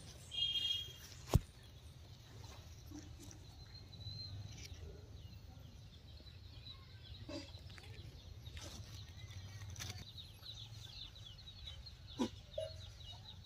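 Faint rural outdoor ambience with scattered high-pitched bird chirps and calls, a short burst of them just after the start. A single sharp click comes a little over a second in.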